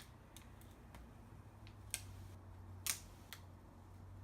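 Transfer tape being peeled slowly off a vinyl decal on sheet metal, giving a few scattered sharp ticks and crackles, the loudest about three seconds in, over a faint steady hum.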